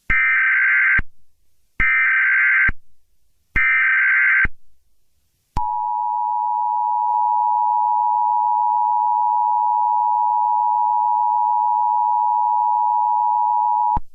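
Emergency Alert System SAME header: three short, harsh data bursts of warbling digital tones. They are followed by the EAS two-tone attention signal, two steady tones held together for about eight seconds that stop abruptly.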